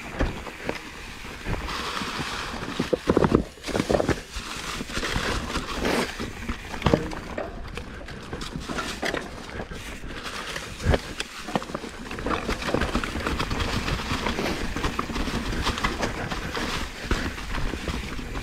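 Mountain bike riding over a rocky trail: the tyres and frame clatter with irregular hard knocks as the wheels strike rocks, the heaviest about three to four seconds in, over a steady rush of riding noise.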